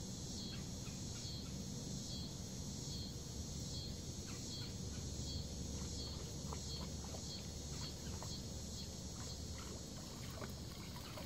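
A chorus of insects chirping in a steady pulsing rhythm, about two pulses a second, over a low steady rumble, with a few faint scattered clicks.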